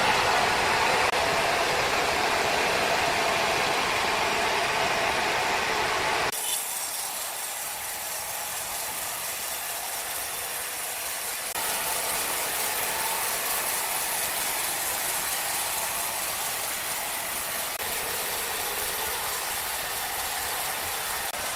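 Sawmill machinery running steadily, a mechanical rattle and hum. The sound changes abruptly about six seconds in and again about twelve seconds in.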